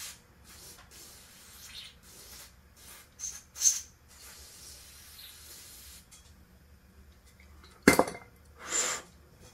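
Hand tools cleaning gasket residue off a Zenith carburetor part: a run of short scraping strokes with a couple of light metal clinks, then a sharp metal clack near the end and a brief hiss.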